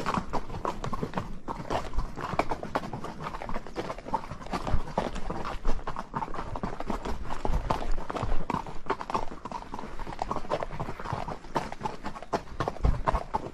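Horse walking on a trail, hooves clopping in a continuous run of strikes.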